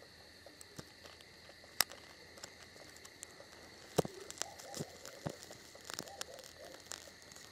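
Small campfire of dry reed tops and damp twigs catching light: scattered sharp snaps, then denser crackling and popping from about four seconds in as the flames take hold. Steady high insect chirring runs underneath.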